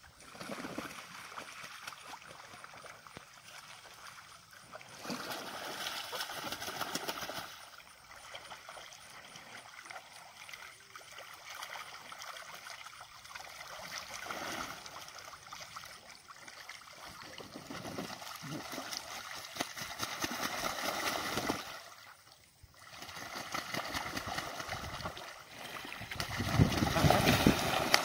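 Water splashing and churning as Danish geese and Pekin ducks bathe and paddle in a pond, rising and falling in waves, with the heaviest splashing in the last couple of seconds.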